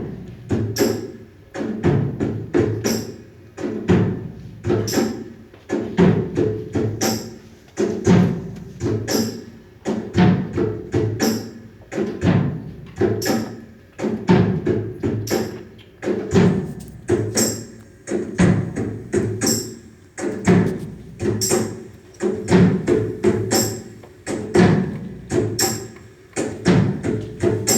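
Music with a steady percussive beat of wood-block-like knocks, about one strong beat a second.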